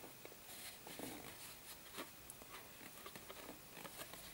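Faint rustles and light taps as a round cardboard box with a cardboard divider inside is handled and turned in the hands.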